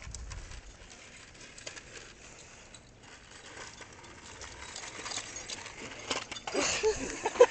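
RipStik caster board wheels clattering over a rough concrete driveway, with irregular small knocks. The sound grows louder toward the end.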